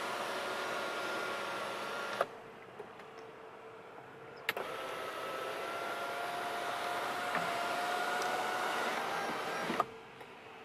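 Power sunroof motor of a 2017 Buick LaCrosse Premium running with a steady whine and stopping with a click about two seconds in. It starts again with a click a couple of seconds later and runs for about five seconds with a slowly rising whine, then clicks to a stop near the end.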